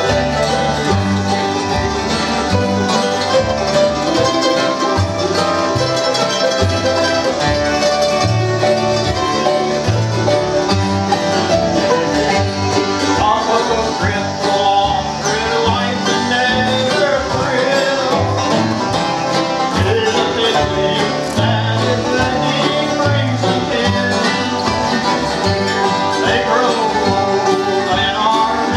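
Acoustic bluegrass band playing a tune with fiddle, mandolin and strummed acoustic guitars over a steady beat.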